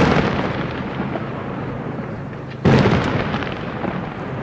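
Aerial fireworks shells bursting: one loud boom right at the start and another about two and a half seconds in, each followed by a long rolling echo and crackle that slowly fades.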